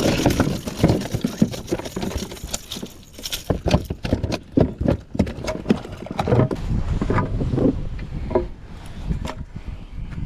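Irregular knocks and clatter of objects handled and bumped against a plastic fishing kayak, over a low wash of water and wind.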